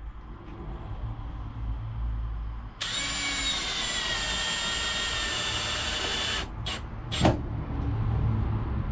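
Power drill driving screws, running steadily for about three and a half seconds with its pitch sagging slightly under load, then stopping and giving a couple of short bursts.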